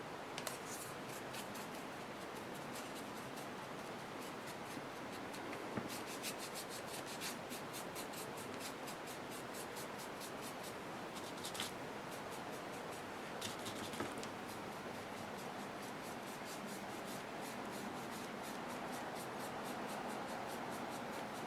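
Paintbrush brushing acrylic paint onto a small clay piece: faint, quick scratchy strokes that come in clusters, with a few light clicks of the brush or piece being handled.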